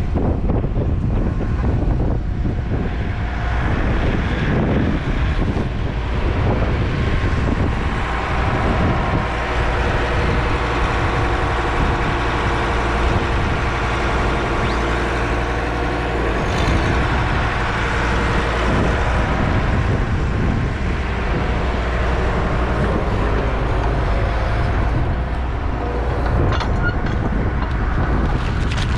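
Diesel engine of a farm loading machine running steadily.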